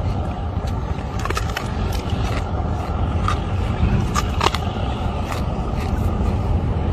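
Wind buffeting the microphone in a steady low rumble, with scattered sharp crunches and cracks as a man bites and chews a slab of ice.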